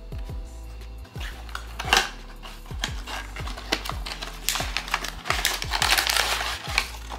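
Crinkling and crackling of plastic and cardboard packaging being handled and opened: a short burst about two seconds in, then a longer stretch in the second half. Background music with a beat plays under it.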